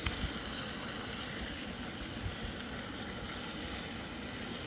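Ham sizzling in oil in a skillet over a gas canister stove (MSR WindBurner), a steady hiss, with a sharp click right at the start.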